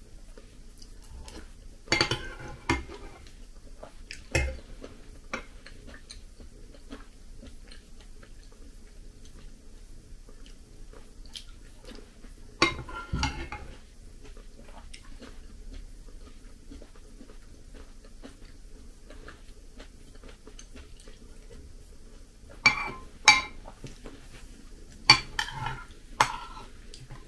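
Metal spoon clinking and scraping against a ceramic bowl of granola and milk, in short clusters of clicks with quiet stretches between, busiest near the end.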